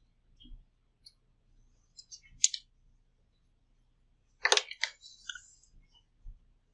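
A few scattered sharp clicks and knocks, the loudest about two and a half and four and a half seconds in, followed by a brief rustle, with quiet between.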